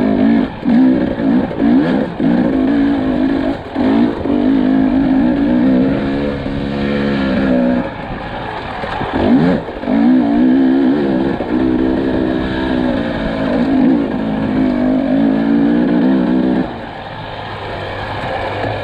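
Husqvarna TE300i two-stroke single-cylinder dirt bike engine under riding load. The throttle is worked on and off, so the pitch keeps rising and falling with short dips. Near the end it settles to a quieter, lower, steadier note.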